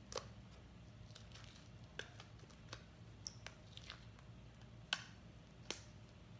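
Blue glitter slime being squeezed and poked by hand in its plastic tub, giving scattered soft clicks and pops, the sharpest two about five and six seconds in.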